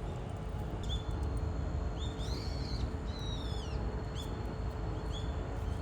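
Small birds calling: several short high chirps that drop in pitch, and two longer arching calls in the middle, over a steady low rumble.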